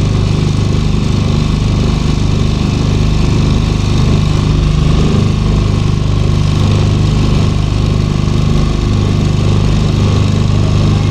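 Small boat engine running steadily at a constant speed, with a low, even drone.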